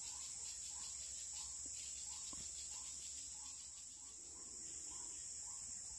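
Steady high-pitched insect chorus, with a faint short call repeating about every half second beneath it.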